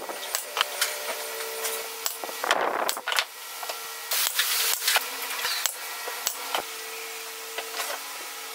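Pneumatic brad nailer firing into wooden slats, sharp clicks with short hisses of air, mixed with wood pieces knocking and rubbing as they are handled. The clicks thin out over the last couple of seconds, leaving a steady faint hum.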